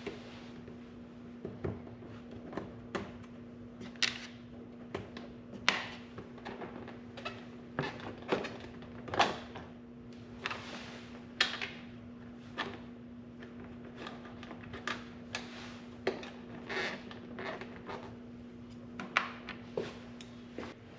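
Irregular clicks and light knocks of plastic push-pin fasteners being pried out and fender trim being handled on a UTV, over a steady hum.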